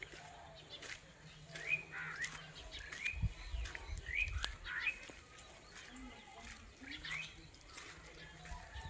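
Birds calling: short rising chirps repeated about once or twice a second, over scattered sharp clicks and a brief low rumble a few seconds in.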